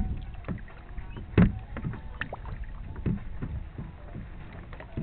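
A sailboat's hull slapping and knocking through small waves while under sail: a run of irregular sharp slaps, the loudest about a second and a half in, over a steady low rush of water and wind.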